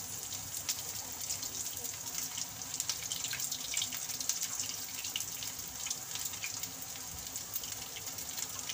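Hot oil sizzling and crackling steadily around Maggi noodle patties shallow-frying in a pan.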